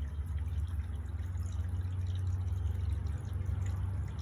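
Water trickling and dripping in a two-tier ceramic-pot fountain, over a steady low rumble.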